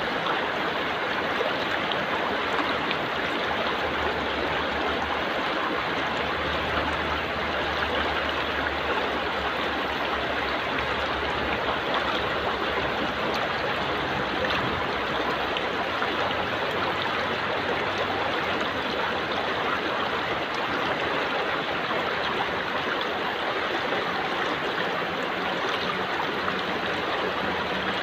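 Stream water flowing swiftly past rocks at the bank, a steady, even rush.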